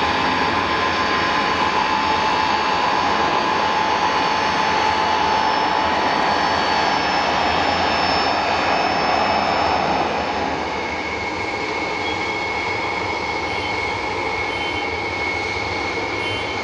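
Tupolev Tu-154M's three rear-mounted Soloviev D-30KU-154 turbofans running at low taxi power: a steady jet rush with a whine. About ten seconds in, the level drops a little and the whine shifts higher.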